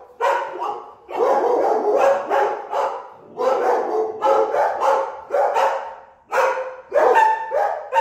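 Dogs, a Belgian Malinois among them, barking rapidly and nonstop in long bouts with short breaks between. It is excited alert barking, set off by the cue word 'look', which they link with someone at the door.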